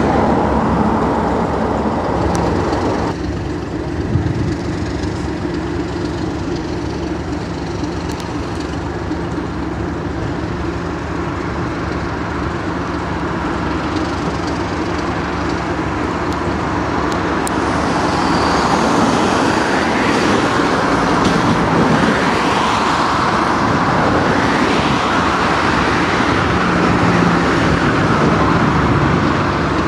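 Class 37 diesel locomotives idling with a steady hum. From about two-thirds of the way through, a mechanical whine that rises and falls joins the engine sound.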